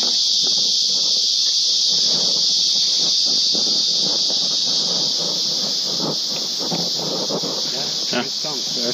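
Insect chorus: a steady, high-pitched shrill drone that does not let up.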